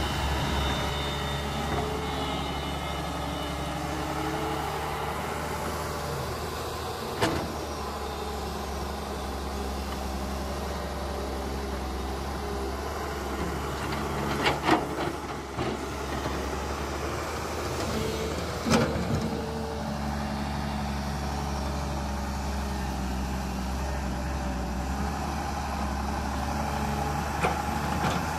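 Radio-controlled excavator at work: its motors whine, rising and falling as the boom and bucket move, over a steady low hum, with a few sharp knocks along the way.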